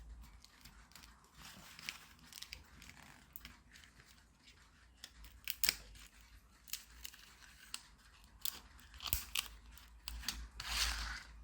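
Faint crinkling and scattered small clicks of packaging being handled as an adhesive security-tag label is peeled off, with a longer rustle near the end.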